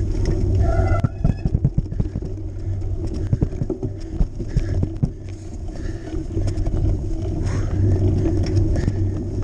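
Cyclocross bike riding over a rough, snowy, muddy dirt track: a steady low rumble with many irregular sharp knocks and rattles as the bike jolts over the bumps.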